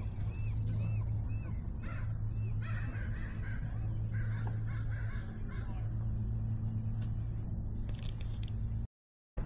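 Birds calling over a steady low hum: a quick run of short repeated calls at the start, then a busier cluster of calls in the middle, with a few clicks later. The sound cuts off suddenly about a second before the end.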